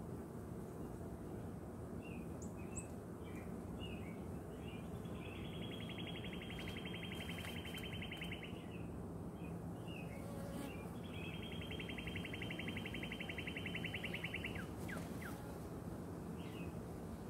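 A songbird sings two long, rapid trills of one repeated note, each about four seconds long, the first about five seconds in and the second about eleven seconds in, with short scattered chirps around them. Beneath them runs a steady low hum, the buzz of a honey bee colony on an open hive.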